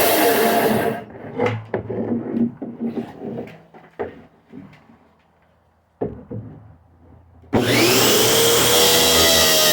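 A series of wooden knocks and scrapes, between stretches of a loud, dense sound at the start and near the end.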